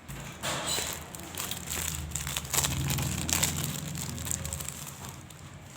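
Paper rustling and crinkling with close handling noise, loudest about halfway through, as paper or journal materials are handled.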